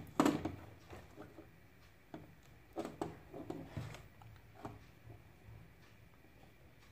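Scattered light clicks and taps of hands handling wires, an LED bulb and a soldering iron during soldering, the sharpest right at the start and a few more around the middle; the last couple of seconds are quiet.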